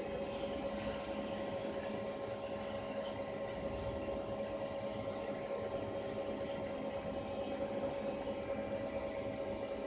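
CNC lathe running with a steady hum that holds several constant tones over an even noise.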